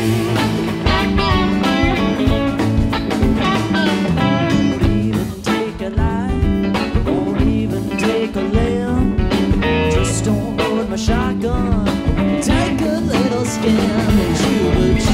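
Live rock band playing a blues-rock instrumental passage between vocal lines: electric guitar with bending, wavering notes over bass, drums and keyboards.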